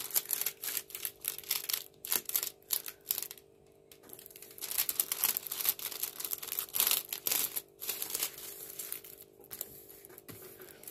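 Clear plastic protective film on a diamond painting canvas crinkling and rustling as hands press and smooth the canvas flat, in irregular strokes with a short pause about three and a half seconds in.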